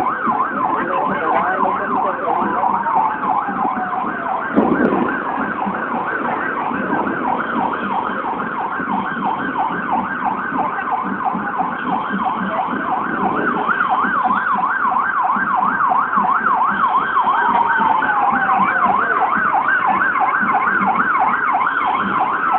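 Electronic siren warbling rapidly and continuously, its pitch sweeping up and down about four times a second. Slower falling tones sound twice over it, and there is a single thump about five seconds in.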